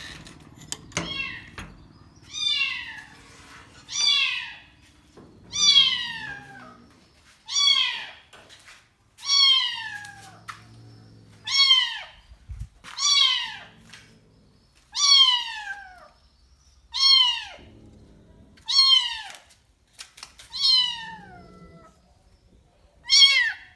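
Young kitten meowing loudly and insistently, about a dozen high-pitched cries that each fall in pitch, repeating roughly every two seconds.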